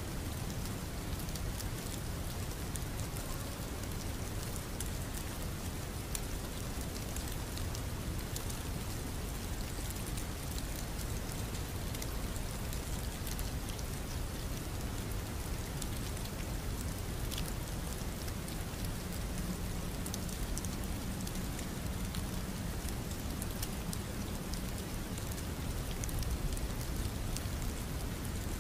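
Rain ambience: a steady hiss of rain with scattered drop ticks.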